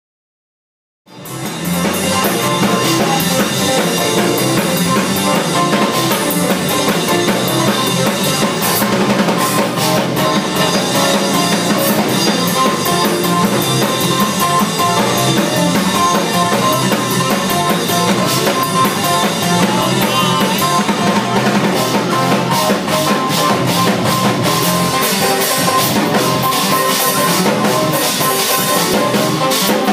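Fast gospel praise-break music driven by a drum kit, with bass drum and snare hits, beginning about a second in and running loud and unbroken: the up-tempo shout music that church dancers move to.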